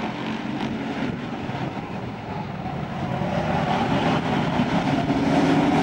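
A pack of pro-street stock cars racing at full throttle just after the start of a heat race, many engines running at once. The sound grows louder over the second half as the pack comes toward the microphone.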